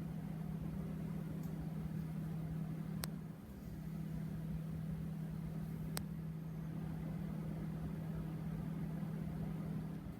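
1984 Kmart (Lakewood) K-223 box fan running, its motor giving a steady hum under the rush of air. Two sharp clicks come about three and six seconds in, and the hum dips briefly just after the first.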